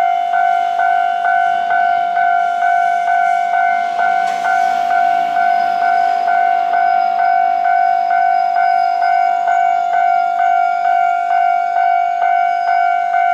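Railroad crossing warning bell ringing: a single-pitched ding repeating evenly about twice a second, with a brief hiss about four seconds in.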